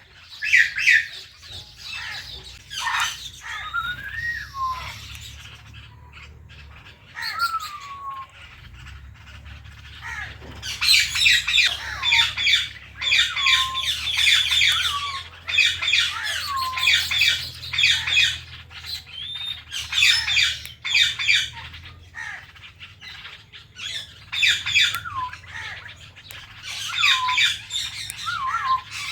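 Indian ringneck parrots chirping and squawking in quick runs of short, high calls, many ending in a falling whistle. The calls come thickest from about a third of the way in.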